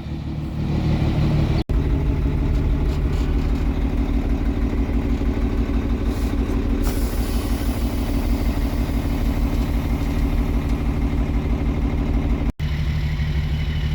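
Diesel semi truck engine running steadily while the truck drives, with a fast low pulsing. The sound breaks off abruptly twice where separate clips are joined.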